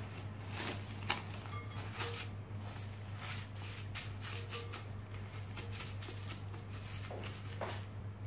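Plastic cling film crinkling and rustling in short, irregular crackles as it is stretched over a glass bowl and pressed down by hand, over a steady low hum.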